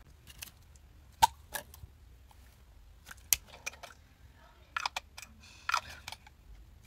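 Sharp plastic clicks and taps, several spread over a few seconds, some in quick pairs, as the cap of a plastic perfume-mist bottle is worked off and the bottle is handled.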